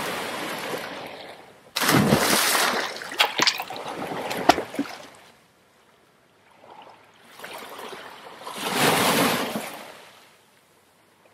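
Water splash sound effects. A rush of water fades at first, then a sudden loud splash with sharp spatters comes about two seconds in. Near the end a second rush of water swells and fades.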